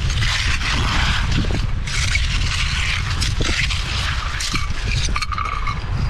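Small hand shovel scraping and crunching through wet beach pebbles and gravel in repeated strokes, over a steady low rumble. A short steady tone sounds about five seconds in.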